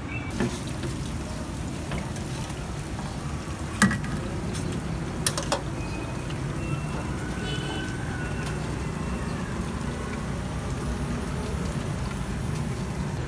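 Street-stall background: a steady low traffic rumble with a faint deep-fryer sizzle, and sharp metal clinks about four seconds in and again a second and a half later.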